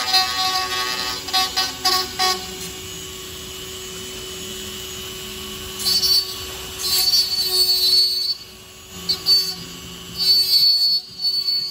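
Handheld rotary tool running at a steady high whine while its bit grinds the edges of the grille opening in a clear plastic RC car body. The grinding is loud and uneven at first, eases to a steadier whine for a few seconds, then comes back in uneven spells where the bit bites into the plastic.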